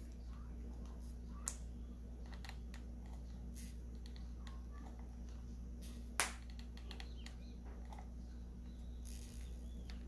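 A few sharp clicks and taps from a hot glue gun being worked against a cardboard base, the loudest about six seconds in, over a steady low hum.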